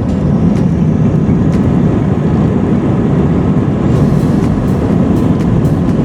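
Jet airliner's engines and rolling noise heard inside the cabin during the takeoff roll: a loud, steady rumble with regular thumps of the wheels over runway joints, coming faster from about four seconds in as the plane gathers speed.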